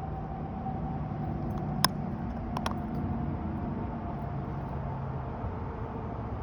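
Steady low vehicle rumble, with a sharp click about two seconds in and two quicker clicks shortly after.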